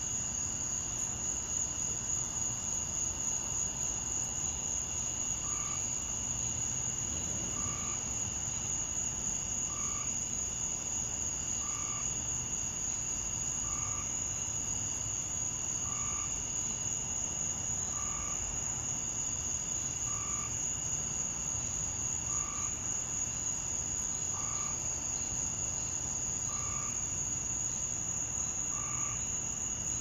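Dusk chorus of crickets and katydids: a steady, unbroken high-pitched trill with a fainter steady drone below it, and a short lower note repeating about every two seconds.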